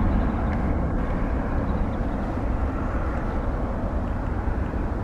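Boeing 777-200F freighter's twin GE90 turbofan engines at climb thrust after takeoff, a deep rumble fading slowly as the aircraft climbs away.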